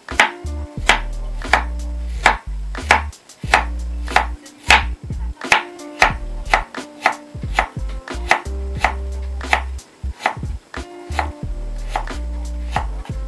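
Kitchen knife slicing peeled ginger root on a wooden cutting board: sharp chopping strokes about two a second, each knocking on the board. A steady low music bed plays underneath.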